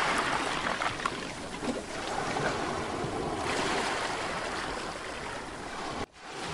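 Small sea waves breaking and washing up on a shore: a steady rushing that swells and eases, cutting off suddenly near the end.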